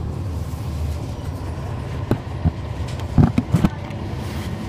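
Cabin of a NABI 40-SFW transit bus, its Cummins ISL9 inline-six diesel running with a steady low hum. A few short knocks and rattles come about two seconds in, with a quick cluster of louder ones a second later.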